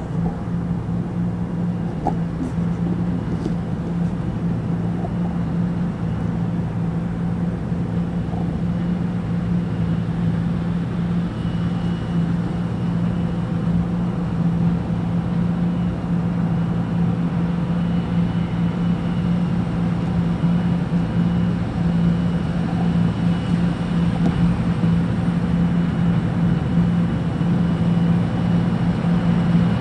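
John Deere 2066 combine harvester cutting and threshing a cereal crop, its engine and threshing gear running with a steady, even drone. The sound grows slightly louder toward the end as the combine approaches.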